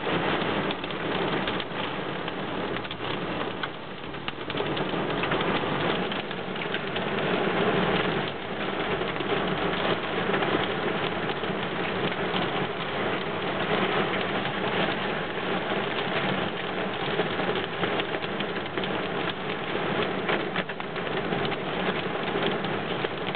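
Heavy rain beating on a car's windshield and roof, heard from inside the cabin: a dense, unbroken patter of countless drops.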